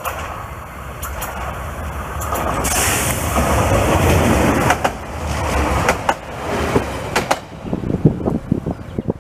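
Siemens Desiro diesel multiple unit approaching and passing close at speed: a rising rumble and rush of wheels on rail, loudest about three to four seconds in, with several sharp clicks as it goes by, then dying away after about seven seconds.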